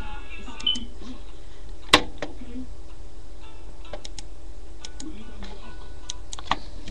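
Scattered sharp clicks and knocks from a hand handling a webcam, the loudest about two seconds in and another near the end, over a steady low hum.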